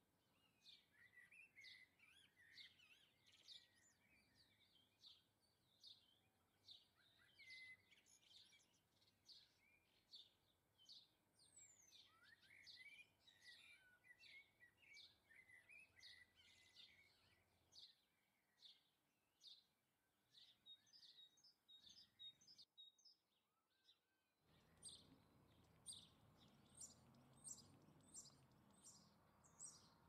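Faint small songbirds chirping: short, high calls repeated about twice a second, with a lower twittering woven in through the first half. The sound drops out briefly about three-quarters of the way through, then the chirping resumes over a slightly louder hiss.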